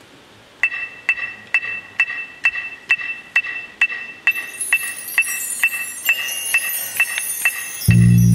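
Electronic metronome (a Dr. Beat) clicking a steady beat, a little over two clicks a second, over the field to keep the marching band in step and together. A high hiss joins about four seconds in, and the band comes in with a loud sustained chord just before the end.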